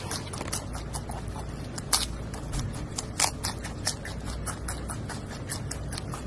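Giant panda chewing bamboo shoots: irregular crisp crunching and snapping, with a couple of louder cracks about two and three seconds in, over a steady low background rumble.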